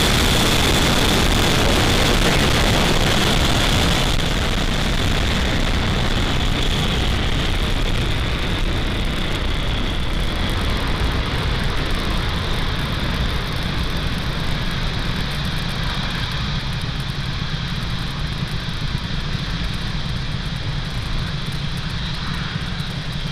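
Falcon 9 first stage's nine Merlin 1D rocket engines firing during ascent: a loud, steady rumble that slowly fades as the rocket climbs away, its highest sounds dropping off about four seconds in.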